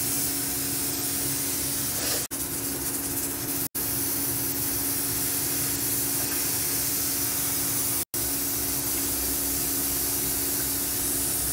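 Rui fish and potato curry boiling hard in a pan on a gas stove: a steady hissing, bubbling rush with a faint steady hum underneath. It cuts out for an instant three times, about two, four and eight seconds in.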